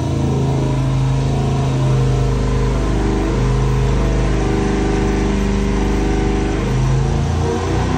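Test engine running on an engine dynamometer just after the start-up call, a steady loud engine note with a deep rumble underneath.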